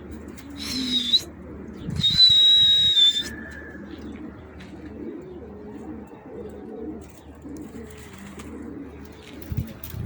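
Domestic pigeons cooing repeatedly in a loft. Two high whistles cut in, a short one about half a second in and a longer, louder one about two seconds in.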